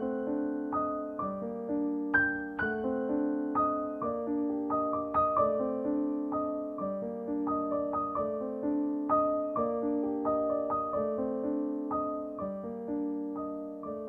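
Solo piano music: melody notes and chords struck about twice a second, each one fading away.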